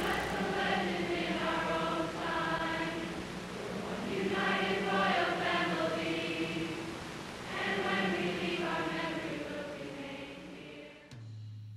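A large crowd of high-school students singing together in unison, in phrases a second or two long with short breaks between them; the singing fades near the end.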